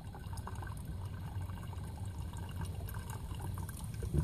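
Filtered water running from a Sawyer Mini filter on a gravity-feed line into a plastic Nalgene bottle, a steady stream filling it, over a steady low rumble.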